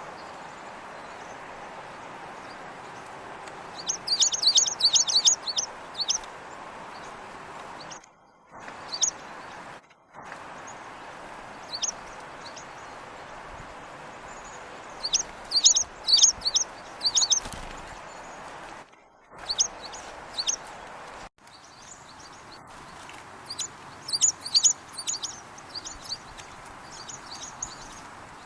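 Small winter songbirds calling: bursts of rapid, high-pitched chirps and scattered single call notes, three flurries of them, over a steady background hiss.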